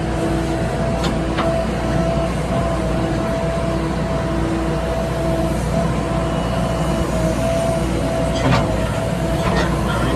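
Diesel engine of a JCB 3DX backhoe loader running steadily under work, with a steady whine over it and a few short metallic knocks.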